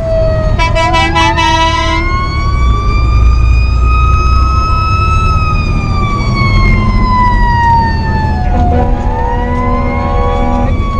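Fire engine's siren wailing, its pitch climbing slowly, sliding down about eight seconds in, then climbing again, with two steady horn blasts, the first about a second in and the second near the end, over the deep rumble of the engine as heard from inside the cab.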